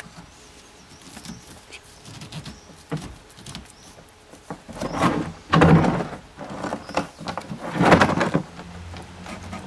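Corrugated plastic hose and its fittings being handled: soft clicks at first, then two louder spells of rubbing and knocking in the second half as the hose is pushed onto the sewer-outlet adapter and bent over to the portable tank.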